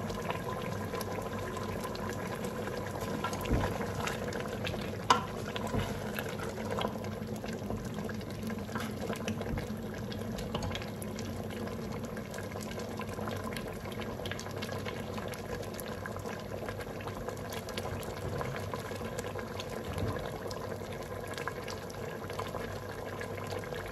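Mutton cooking down in butter and its own juices in a pot, bubbling and sizzling steadily with fine crackles, over a steady low hum. There is one sharp tick about five seconds in.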